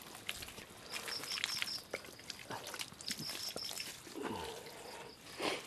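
Crickets chirping in short pulsed trills, over small splashes and drips of water from hands working in a basin.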